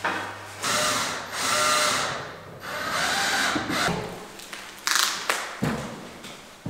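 Clear plastic protective film being peeled off the front of a picture frame in several long, rasping, squeaky pulls. It ends in a burst of crinkling about five seconds in, followed by a soft knock.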